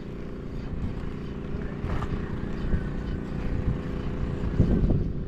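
Strong wind buffeting the microphone in gusts, over a steady low motor drone.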